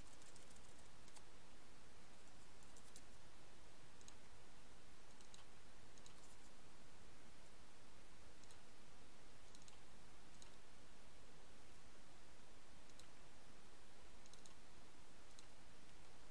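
Faint, scattered clicks of a computer mouse and keyboard, a few separate taps every second or two, over a steady low hiss.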